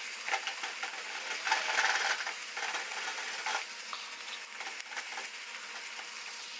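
Ground beef frying in a nonstick pot while a silicone spatula stirs it: a steady sizzle with irregular scraping and light taps of the spatula against the pot.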